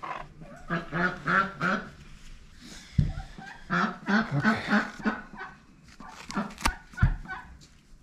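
A domestic duck calling loudly and repeatedly from the water, in bouts of quacks. A few sharp clicks from handling are mixed in.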